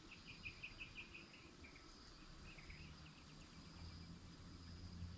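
Faint insects chirping: a steady thin high buzz, with two quick runs of short chirps, about seven a second, in the first three seconds, over a faint low hum.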